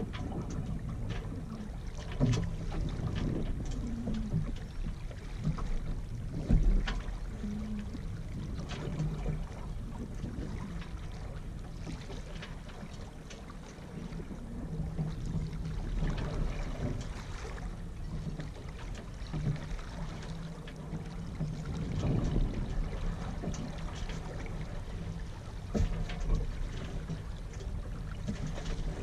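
Water swishing and lapping along the hull of a Yamaha 24 sailboat ghosting along in light wind, with low rumbling wind on the microphone. A few short knocks come from the boat now and then.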